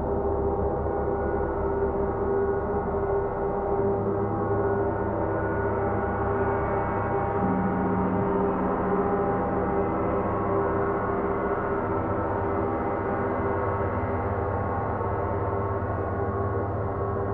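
Three large gongs, one a Paiste, played together in a triple gong bath: a sustained, layered wash of overlapping ringing tones with no sharp strikes. New deeper tones swell in a few times as the gongs are played.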